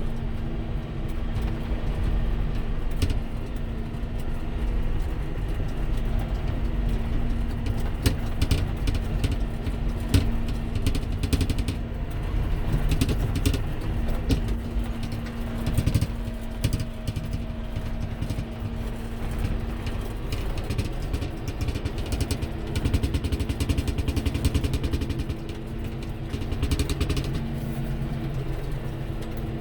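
Farm machinery engine running at a steady speed, a constant hum with low rumble and scattered brief clicks and rattles.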